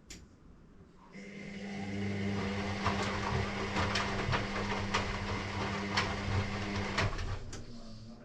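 Electrolux EW6S404WU front-loading washing machine's drum motor turning the drum during the wash: a steady motor hum and whine with sharp knocks about once a second, starting about a second in and stopping near the end.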